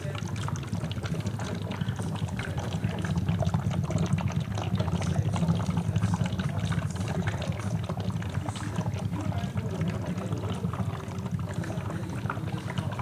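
Steady bubbling and gurgling of an HHO electrolysis cell running, with hydrogen-oxygen gas and electrolyte flowing through its hoses and reservoir tanks. The flow is even, without surges, which is the sign of a cell flowing well.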